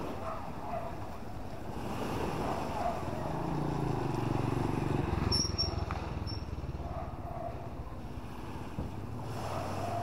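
Seafront street noise with a motor vehicle's engine passing by, loudest about four to five seconds in, over a steady outdoor hiss.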